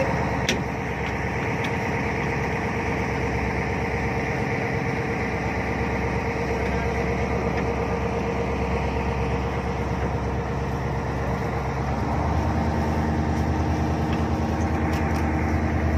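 Jet boat engine running steadily, its note changing and growing slightly louder about twelve seconds in.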